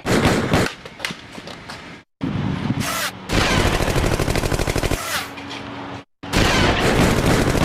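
Bursts of rapid automatic gunfire, about a dozen shots a second, in two long runs. Each run breaks off abruptly at a hard cut.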